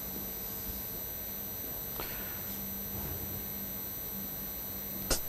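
Steady background hiss with a low electrical hum coming and going, the room tone of a television studio recording. There is a faint tick about two seconds in and a sharp click near the end.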